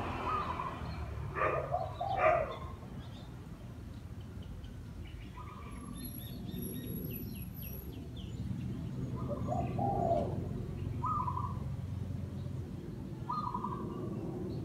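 Caged decoy dove cooing in short phrases repeated every few seconds, two of them louder near the start. Smaller birds chirp at a higher pitch in the middle.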